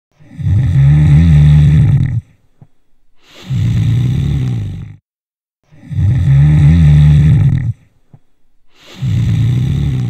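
A person snoring loudly: two breath cycles, each a loud rattling snore followed by a softer one, every snore lasting about one and a half to two seconds. Snoring is the sound of air turbulence in an airway narrowed during sleep.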